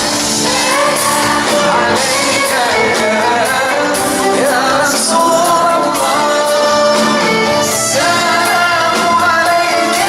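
Music with singing: a voice singing over instrumental accompaniment, continuous and loud.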